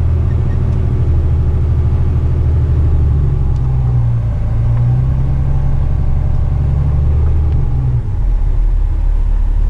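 Heavy rigid tipper truck's diesel engine running under way. Its note rises a little midway, then drops abruptly about eight seconds in.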